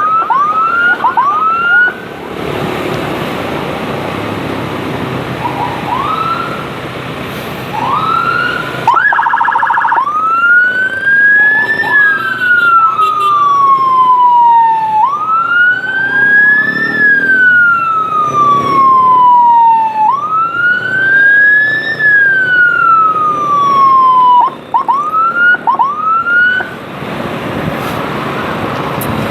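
Newly installed electronic escort siren on a motorcycle, cycling through its tones. Short rising whoops come first, then vehicle and road noise with a few whoops, a brief fast warble, and three slow wails, each rising and then falling over about five seconds. Quick whoops return near the end.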